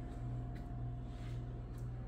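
Steady low mechanical hum of room tone with a faint thin tone above it, and a few faint clicks.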